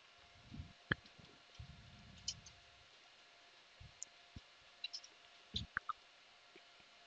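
Faint room tone with a few scattered, irregular clicks, the sharpest about a second in, and some soft low bumps.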